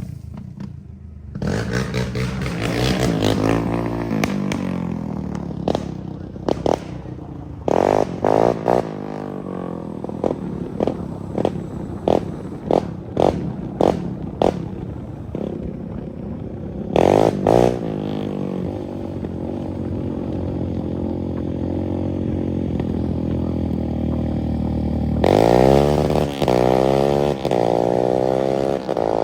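Yamaha Raptor 700 ATV's single-cylinder four-stroke engine running through a loud aftermarket exhaust. It revs up early on, gives a string of quick, sharp throttle blips through the middle, then climbs in pitch again near the end as it accelerates.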